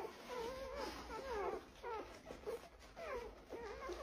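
A litter of newborn puppies whimpering and squeaking: a string of short, wavering high cries, about two or three a second, some overlapping.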